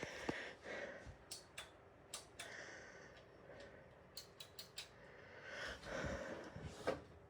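Faint scattered clicks and light taps, the sound of a PC case and its parts being handled.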